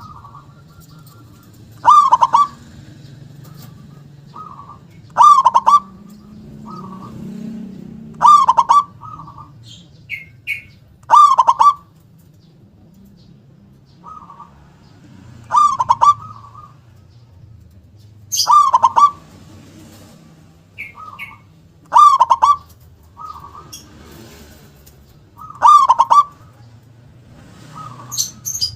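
Zebra dove (perkutut) cooing its song over and over, a loud phrase ending in a sharp "kung" about every three to four seconds. Faint short chirps from other small birds sound between the phrases.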